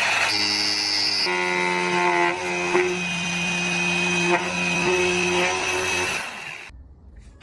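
Small electric power tool cutting into a piece of wood: a steady motor whine over a grinding, rasping noise, dying away about six seconds in.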